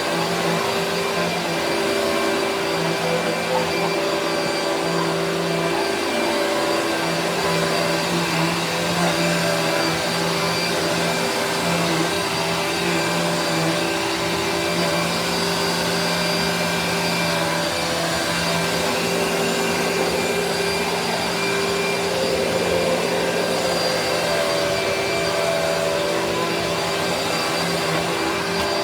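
Vacuum cleaner running steadily, a continuous whooshing hum with a high whine over it.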